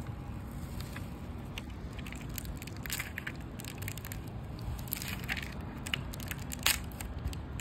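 Crackling, crinkling handling noise close to the microphone over a steady low rumble, with sharper crackles about three, five and seven seconds in.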